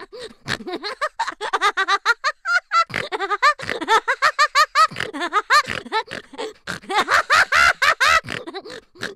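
Hearty human laughter, a quick run of short ha-ha bursts one after another, with more than one voice overlapping in places.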